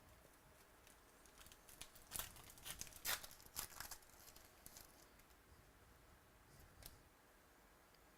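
Trading-card pack wrapper being torn open and crinkled: a quick run of crackling rips about two to four seconds in, then a single faint click near the end.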